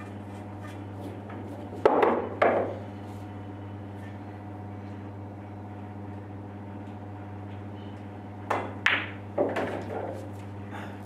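Pool balls and cue: two sharp knocks about two seconds in, then a shot near the end with a quick run of clacks and knocks as the cue strikes the cue ball, the balls collide and a ball drops into a pocket. A steady low hum runs underneath.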